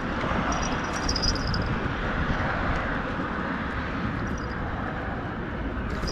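Steady low rumble of road traffic on the bridge, with no break or change.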